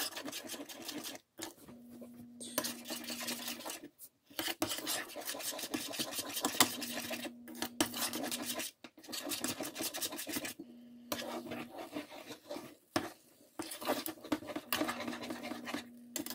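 Metal spoon scraping and stirring a thick mung bean paste in a stainless steel saucepan, in runs of quick scraping strokes broken by short pauses. The stirring is kept up so the thickening batter comes together without burning.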